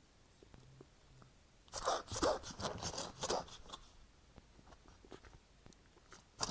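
Ferret sick with flu coughing: a rapid fit of harsh hacking bursts lasting about two seconds, then one more short sharp burst near the end.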